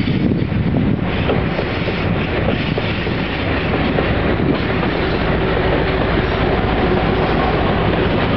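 A MÁV M62 diesel locomotive, with its two-stroke V12 engine, running hard as it passes close by. It is followed by a string of covered hopper wagons rolling past, their wheels clacking over the rails.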